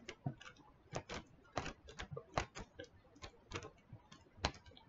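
Faint, irregular small clicks, about two or three a second: a diamond painting pen tapping resin drills onto the sticky canvas.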